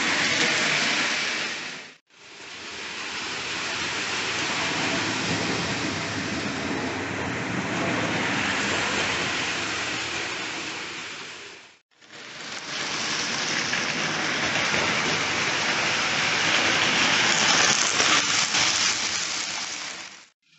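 OO gauge model trains running on the layout's track: a steady rattling whirr of wheels on rail and small electric motors, heard close up. It fades out and back in about two seconds in and again about twelve seconds in, with a few faint clicks late on.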